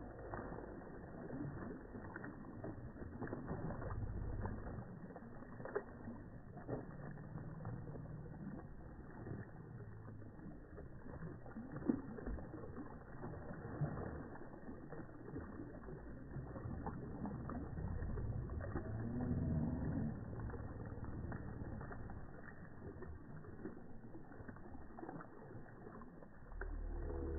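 Mallards and Canada geese splashing and paddling in water, the sound slowed down into a low, muffled rumble with scattered splashes and clicks. A deep, drawn-out call sounds about two-thirds of the way through.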